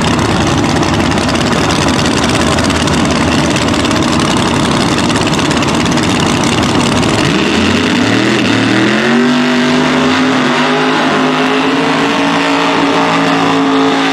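Pro Nitrous drag cars' nitrous V8 engines making a loud, rough rumble. About seven seconds in, one engine revs up in a rising pitch and holds it high and steady through a tyre-smoking burnout, then drops off at the very end.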